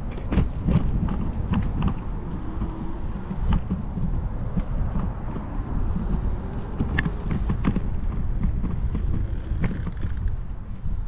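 Wind buffeting the camera microphone and road rumble while riding a small electric two-wheeler over pavement. Frequent small rattles and clicks come from the handlebar and camera mount as it rolls over the rough surface.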